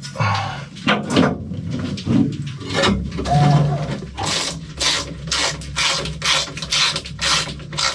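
Fiberglass-wrapped metal exhaust elbow being worked onto its joint by hand: repeated scraping and rubbing strokes as the pipe is twisted and pushed into place, coming quicker and closer together in the second half.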